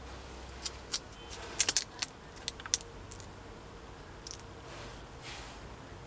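Sharp plastic clicks and ticks from a white plastic laptop AC adapter and its cable being handled: a quick irregular run of about eight clicks in the first three seconds, a few in fast succession, then one more faint tick later.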